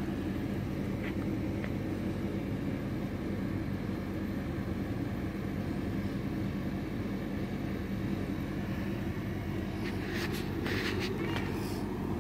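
Cat purring steadily at close range, a continuous low rumble, with a few brief clicks near the end.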